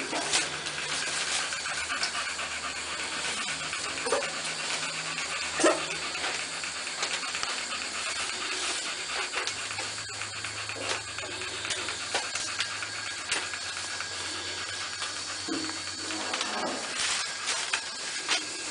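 American Staffordshire terrier puppies scrambling on newspaper: the paper rustles and crinkles under them over a steady hiss, with a few brief puppy cries.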